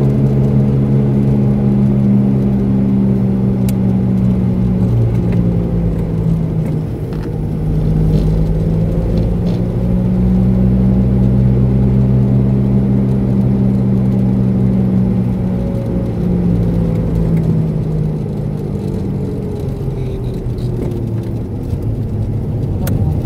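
Car engine and road noise heard from inside the cabin while driving, a steady low hum whose pitch drifts gently up and down with small changes in speed.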